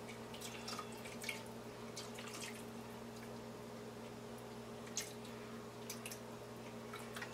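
Gravy mix in chicken stock being poured gradually from a measuring cup into a pot of boiling broth: faint, scattered drips and small splashes of liquid, over a steady low hum.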